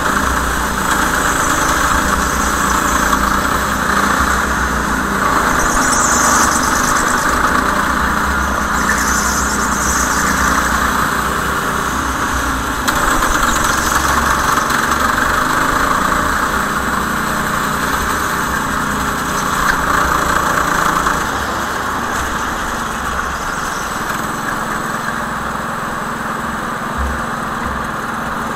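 Go-kart engine running steadily, a little quieter over the last several seconds.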